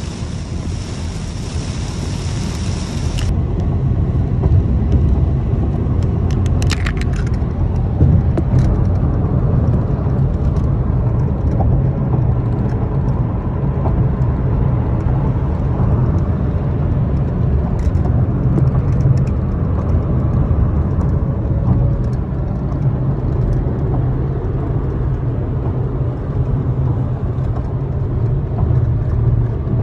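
Road noise inside a car cabin at highway speed: a steady low rumble of tyres and engine. For the first three seconds, rain hisses against the windshield, then cuts off suddenly.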